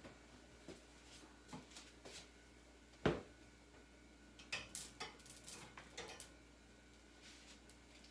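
Plastic clothes hangers clacking against each other and the wire shelf rail as they are taken down: one sharp knock about three seconds in, then a quick run of light clicks.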